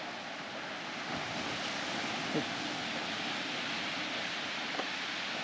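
Steady rushing of ocean surf along a rocky lava coast, mixed with wind, swelling slightly about a second in.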